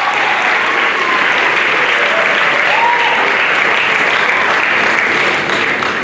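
Audience applauding steadily, with a few faint voices over the clapping.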